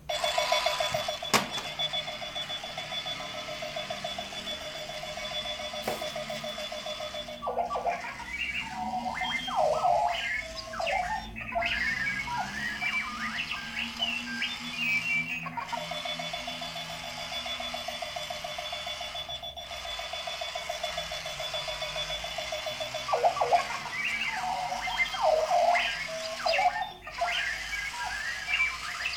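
Clocky wheeled alarm clock's electronic alarm going off: a rapid pulsing buzz for several seconds, then a run of random warbling chirps and whistles. The cycle repeats twice.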